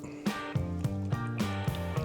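Background music: steady notes stepping along in a regular rhythm.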